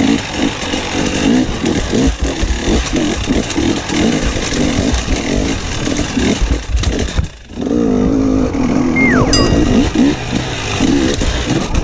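Enduro motorcycle engine, heard from the rider's helmet, revving up and down in quick bursts as the throttle is worked. About seven seconds in it briefly drops away, then picks up again.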